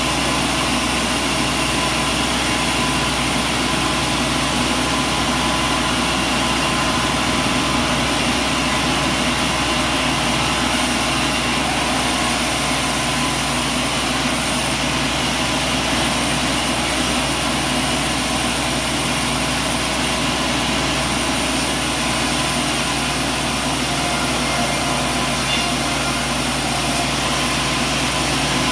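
Heavy machinery running at a steady pace: a continuous engine-like drone with steady hum tones and no sudden knocks or changes.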